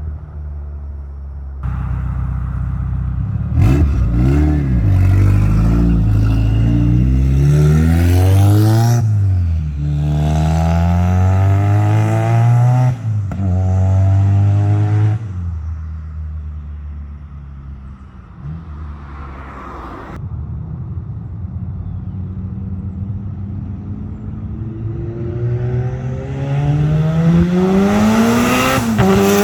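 Mazdaspeed 6's turbocharged 2.3-litre four-cylinder, fitted with a 3-inch exhaust cutout, accelerating hard. Its note climbs in pitch and drops back several times as it is worked through the revs, eases off to a quieter cruise midway, then pulls hard again near the end.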